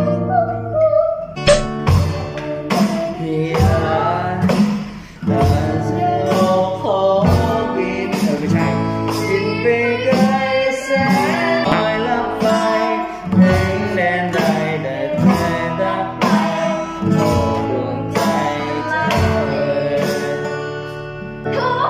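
A song with a sung melody and guitar, with drums played along on an electronic drum kit, its hits sounding at a steady beat.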